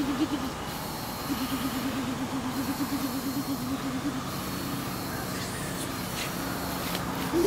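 Small motor scooter engine running at low speed, a warbling hum that fades about four seconds in and grows louder again near the end.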